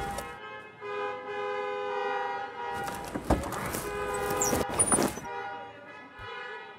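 Car horns honking in long held blasts from a traffic jam, several two-tone horns overlapping. A couple of sharp knocks come midway.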